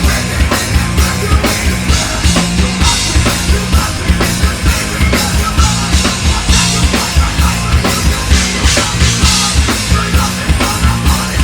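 Heavy metal band playing live: distorted guitars and bass over a fast, steady kick drum pattern with cymbals.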